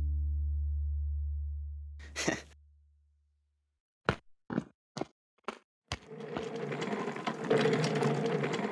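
A low synth chord fades out, then a short burst of noise, five quick clicks about half a second apart, and a rushing whir as a robot speeds past, which cuts off suddenly near the end.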